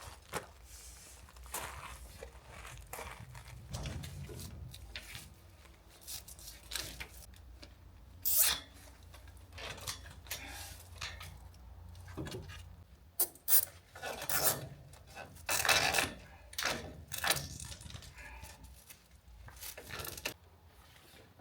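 Irregular rustling, scraping and tearing of plastic windbreak sheeting being handled and fitted on a dog kennel. The louder, sharper bursts come in the second half.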